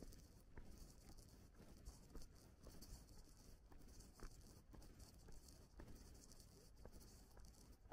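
Near silence, with faint scattered light ticks over a low background hiss.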